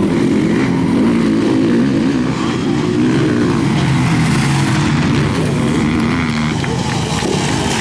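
Several motocross bike engines running at once, their pitch wavering up and down as the throttles are blipped.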